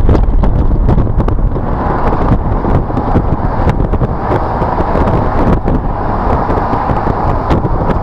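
A Mercedes SLK at speed on track: steady engine and road rumble under heavy wind buffeting on the microphone, with scattered small clicks.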